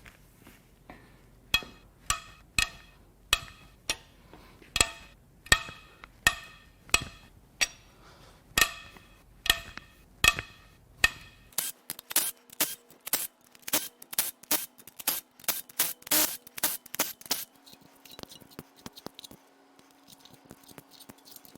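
Metallic ratcheting clicks in slow, even strokes, about one and a half a second, as cylinder head bolts are backed out of a BMW S52 engine. About halfway through, the clicks come much faster over a steady low hum for several seconds.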